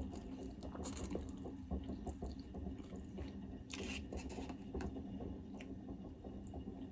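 Faint eating sounds: a man chewing a mouthful of pasta with meat sauce, with small wet mouth and utensil clicks and one short louder rustle about four seconds in.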